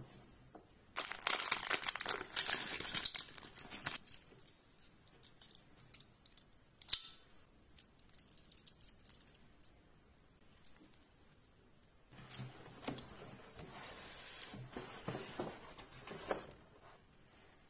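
Clear plastic wrapping crinkling and tearing as it is pulled off metal bag hardware on a yarn spool, in two spells of rustling: one in the first few seconds and one again from about twelve seconds in. A single sharp click comes about seven seconds in.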